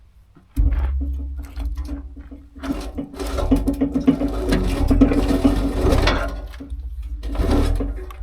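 A motor-driven machine starts abruptly and runs with a steady low hum and a rattling, clattering tone, busier and louder from about three seconds in, easing briefly before picking up again near the end. It is heard as the log is being spun around on the sawmill.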